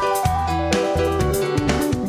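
Instrumental background music: a melody of stepping notes over a bass line, with drum strikes.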